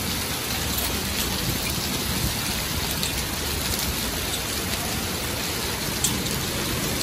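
Heavy rain pouring onto stone paving: a steady, dense hiss flecked with sharp little drop impacts, with one sharper tap about six seconds in.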